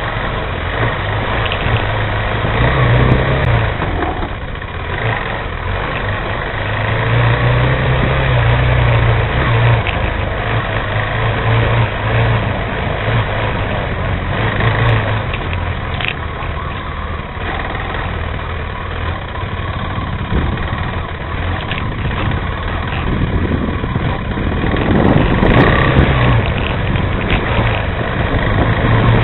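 Motorcycle engine running through off-road riding, its revs rising and falling several times, with a louder, rougher stretch near the end.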